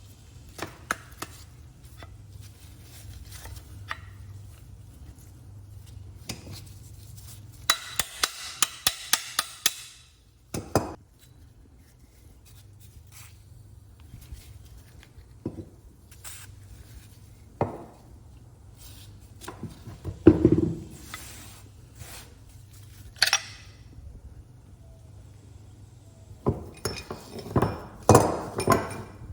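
Hand tools knocking and clinking on metal parts, irregular and sharp, with a quick run of about ten ringing taps around eight seconds in and a cluster of louder knocks near the end.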